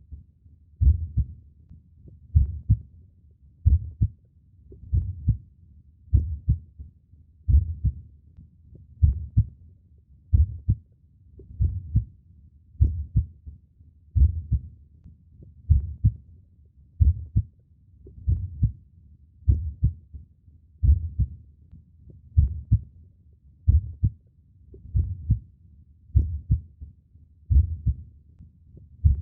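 Human heartbeat, slow and steady at about 45 beats a minute, each beat a low lub-dub double thump.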